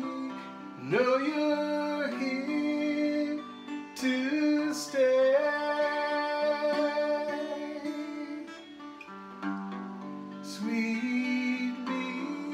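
A man singing long, held notes that slide up into pitch, over guitar accompaniment.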